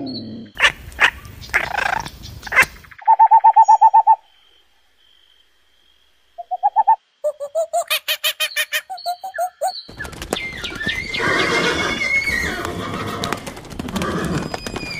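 A string of short animal sounds from different clips. First come sharp clicky calls and a quick train of about ten pulsed notes, then a pause of near silence, then a monkey's rapid repeated calls. From about ten seconds in, a herd of horses is heard, with a long whinny.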